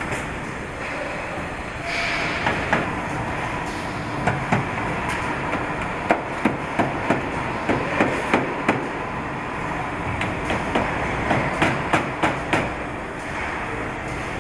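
Body-shop machinery humming steadily, with runs of sharp metallic clacks about three a second, from tooling working a bare car body. One run comes in the middle and another near the end.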